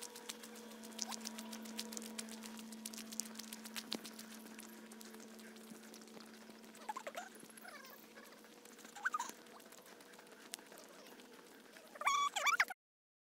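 Footsteps crunching on a gravel path for the first few seconds over a faint steady hum. Then scattered bird chirps, with a louder burst of birdsong near the end that cuts off abruptly.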